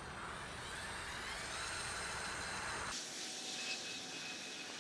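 Small electric motors and plastic gears of a LEGO Technic remote-control buggy whining as it drives away over asphalt, the whine rising slightly in pitch over the first two seconds and then holding steady. Wind rumble on the microphone cuts off abruptly about three seconds in.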